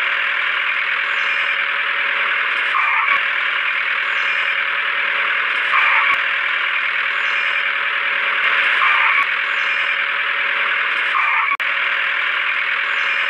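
A tractor engine running steadily, with a faint pattern that repeats about every second and a half.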